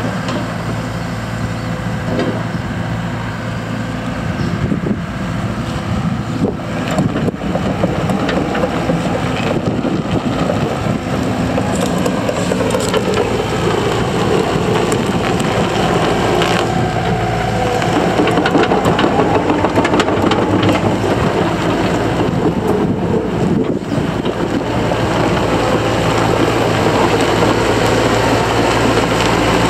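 Takeuchi TB290 compact excavator's diesel engine running, with clanking and crunching as the machine works its tracks over gravel. The engine runs steadily near the start and end, and its note rises and falls through the middle.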